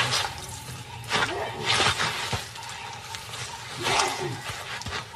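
Baboon screaming in distress in several harsh bursts, each rising and falling in pitch. The loudest come about a second and two seconds in and again about four seconds in.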